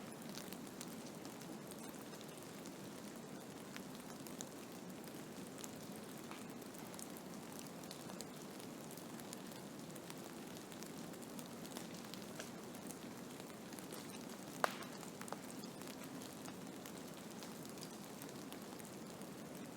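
Blizzard ambience: a steady low rushing noise with faint scattered ticks, and one sharper click about fifteen seconds in.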